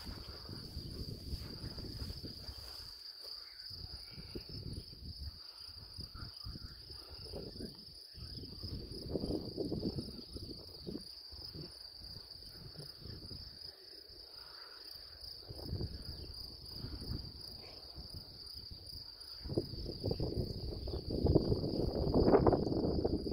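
Crickets singing in one steady high chirr, with gusts of wind rumbling on the microphone that grow louder near the end.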